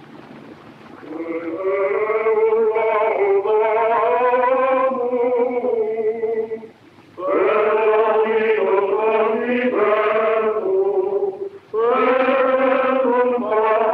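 Voices singing a slow, chant-like melody in long held notes. The melody comes in three phrases, with short breaks about seven seconds and about eleven and a half seconds in.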